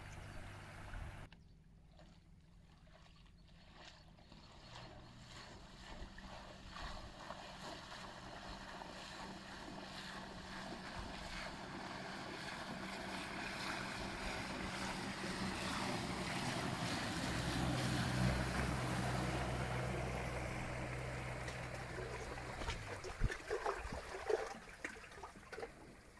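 Small open boat driven by an electric-converted outboard motor passing close by: mostly the rush of hull and wake through the water, growing louder to a peak a little past the middle and then fading, with a low steady hum as it goes by closest. Short splashes from the wake lapping on rocks near the end.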